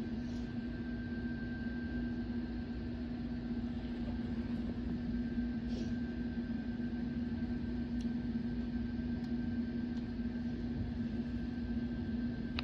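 Steady electrical or mechanical room hum with a constant low tone and a fainter higher one, and a few faint clicks in the second half.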